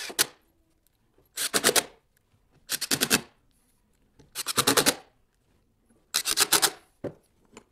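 Cordless impact driver hammering screws into a wooden board, in four short bursts of rapid hammering about half a second each.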